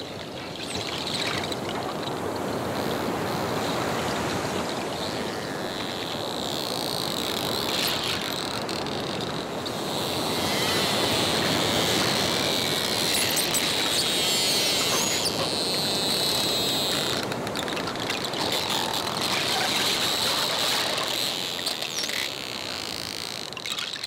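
Dolphins whistling and chirping underwater over a steady wash of water noise, with a few sharp clicks; the high chirping is thickest through the middle stretch.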